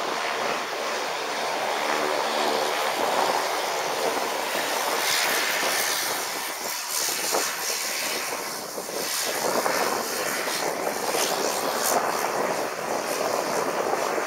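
Light twin-engine propeller plane taxiing on one engine, its other propeller stopped to save fuel: steady engine and propeller noise with wind rushing over the microphone.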